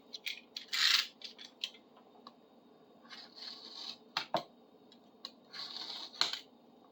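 Masking tape being peeled off a bar clamp's handle in several short, noisy pulls, the loudest just before one second in, with small clicks and knocks of the clamp being handled.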